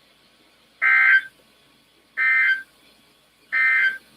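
Emergency Alert System SAME digital data bursts: three identical short, harsh buzzing bursts about a second and a half apart. They are the end-of-message code, which is sent three times right after the spoken warning ends.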